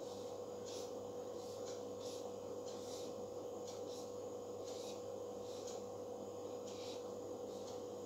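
Marker pen squeaking and scratching on a whiteboard in short strokes, about one or two a second, as small hatch marks are drawn, over a steady hum.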